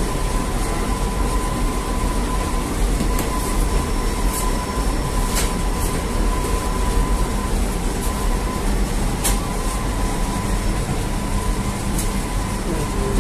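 Bakery machinery running, with a steady low rumble and a thin, steady whine. Several sharp knocks and clacks come through the noise.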